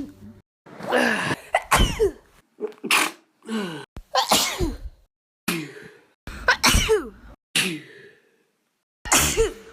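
Human sneezes, about ten in quick succession and cut back to back, each starting and stopping abruptly. Many end in a voiced 'choo' that falls in pitch.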